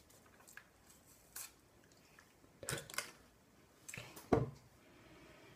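A few separate clicks and soft knocks of small objects being handled, the loudest a knock about four seconds in, with faint rustling between them.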